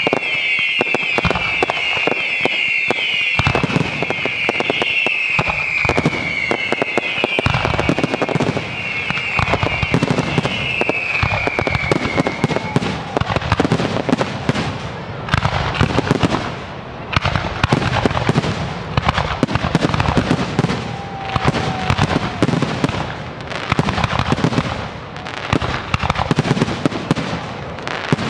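Dense fireworks barrage: aerial shells bursting in quick succession with crackling, and a string of falling whistles over the bangs for the first dozen seconds.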